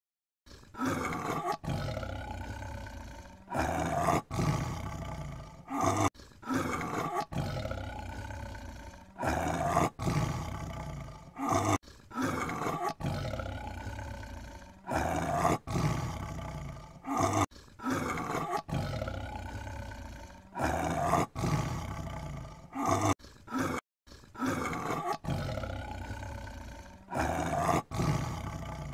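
Tiger roaring over and over: a string of loud roars, each starting suddenly and trailing off, about one every two seconds, with abrupt cuts between some of them.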